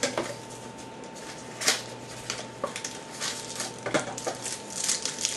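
Foil trading-card pack wrapper crinkling and crackling in the hands as a pack is opened, with scattered sharp crackles and a few card clicks.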